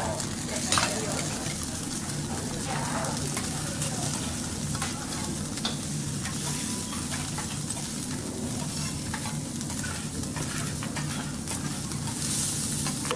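Food sizzling on a teppanyaki griddle, a steady frying hiss with scattered sharp metal clicks and taps, over a steady low hum.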